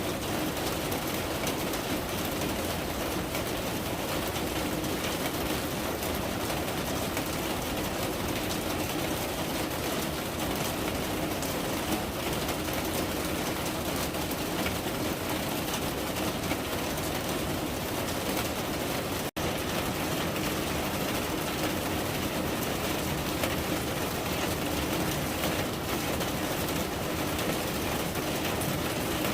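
Steady rain falling, an even unbroken hiss that drops out for an instant about 19 seconds in.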